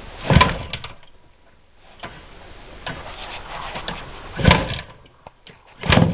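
MZ ES 150/1 two-stroke single-cylinder engine being kick-started: three heavy kicks, about half a second in, near four and a half seconds and just before the end, each turning the engine over with a brief rumble, with clicks of the kick-starter and engine between them. The engine does not catch and run.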